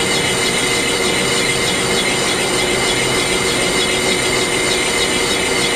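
Metal lathe running steadily, its boring bar taking a rough cut, about 15 thou a side, in the bore of a 1941 Indian flathead cylinder barrel. It makes a steady whir with a faint beat repeating a few times a second.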